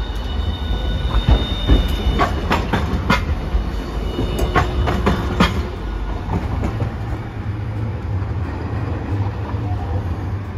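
Hiroshima Electric Railway Green Mover LEX low-floor tram passing on street track. Its wheels squeal with a high tone at first. About two seconds in comes a run of sharp clacks as the wheels cross the rail joints and points of the track junction, over a low rumble that carries on as the tram moves away.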